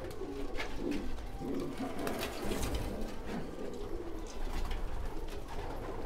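Domestic pigeons cooing, several overlapping coos throughout, with short rustling and flapping noises now and then.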